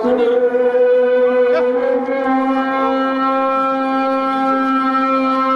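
A wind instrument holding one long, steady note, which steps up slightly in pitch about two seconds in.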